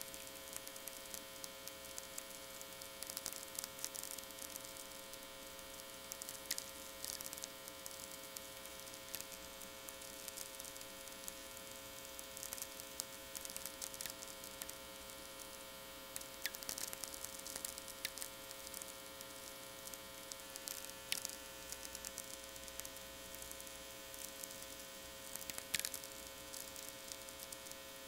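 VLF natural radio received on a Technics SA-350 receiver: steady power-line hum under a constant crackle of sferics, the clicks and pops of distant lightning, with a few louder pops standing out.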